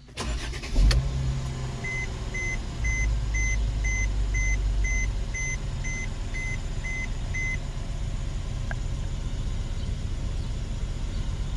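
A Mercedes-Benz E350's 3.5-litre V6 starting up, then idling steadily. Over the idle, a warning chime beeps about twice a second for several seconds.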